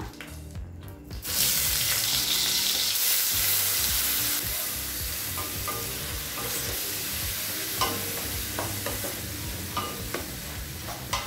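Ground onion paste dropped into hot oil in an iron kadai, bursting into a loud sizzle about a second in and frying steadily. From about five seconds on, a spatula stirs it, with short scrapes and taps against the pan.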